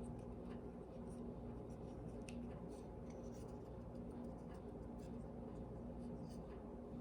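Light scattered taps and clicks of a cookie cutter being pressed through rolled dough and lifted off the counter, over a steady low hum.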